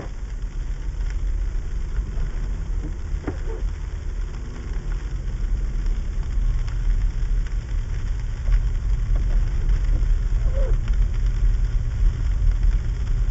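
Car driving on a sleet-covered road, heard from inside the cabin: a steady low rumble of engine and tyres that grows louder as the car picks up speed, with a few faint ticks.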